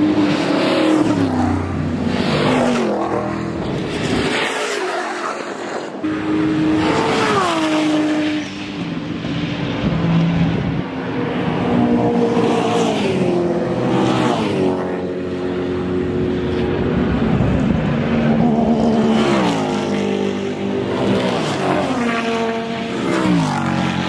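Racing cars flying past at speed one after another, each engine note dropping sharply in pitch as the car goes by.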